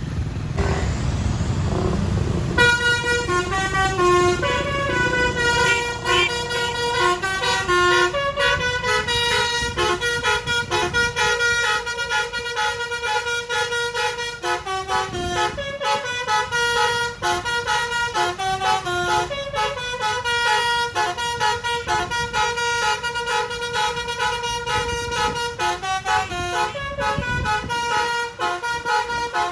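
A bus's telolet basuri horn playing a long melody, note after note, over engine and road rumble; the horn comes in about two and a half seconds in and plays on without a break.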